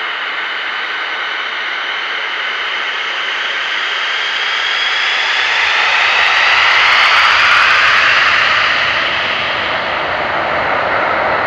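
Saab AJS-37 Viggen's single afterburning turbofan running up for take-off: a loud jet roar with a high whine that rises in pitch and swells, loudest about seven seconds in, then eases slightly and holds.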